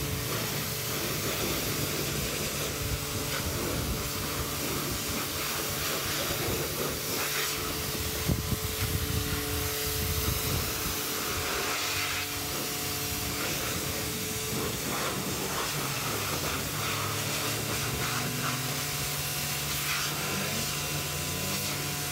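Pressure-washer jet spraying water onto a car's bodywork: a steady hiss, with a constant low hum underneath. The hiss changes a little as the spray moves over the panels.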